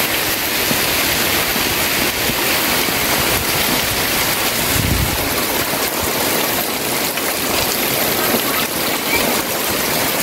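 Heavy rain pouring down steadily: a dense, even hiss.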